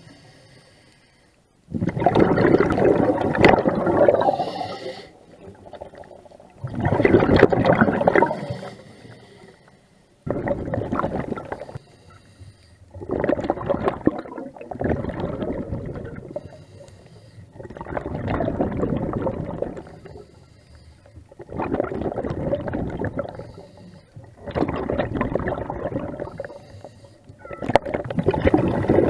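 Diver breathing underwater through a scuba regulator: a gurgling rush of exhaled bubbles about every three to four seconds, each lasting a couple of seconds, with quieter gaps between.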